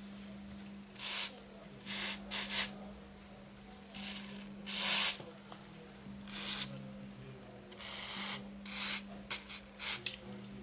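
Repeated short scraping and rubbing noises, uneven in length and spacing with a louder one about halfway, as a glued-on laptop heatsink is worked loose from the motherboard. A faint steady low hum runs underneath.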